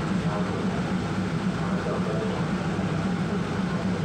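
Diesel train engine running steadily with a low hum.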